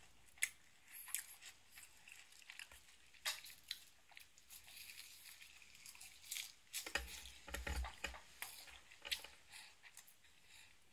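Close-up eating of a hand-rolled nori sushi: faint biting and chewing with scattered short crisp crackles from the seaweed sheet. A couple of dull low bumps come about seven seconds in.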